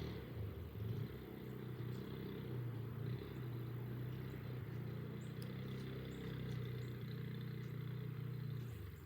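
An engine running steadily, its pitch wavering for the first couple of seconds and then holding even, dying away near the end.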